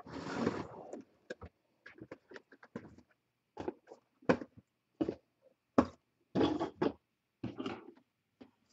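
Hands handling a sealed trading-card box and its plastic wrap: a rustling burst, then scattered clicks and taps with short crinkles of wrap.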